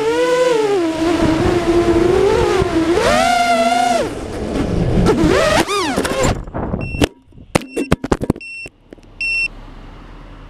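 Brushless motors and propellers of a 5-inch FPV quadcopter (DYS SHU 2306 2500KV motors) whine loudly, the pitch dipping and climbing as the throttle changes. About six seconds in the whine cuts off as the quad comes down through foliage into grass. A scatter of sharp clicks and knocks follows, then a few short high beeps.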